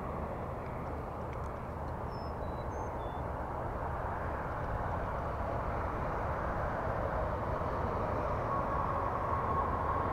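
Steady low engine-like rumble that grows slowly louder, with a whine coming in near the end and a few faint high chirps in the first few seconds.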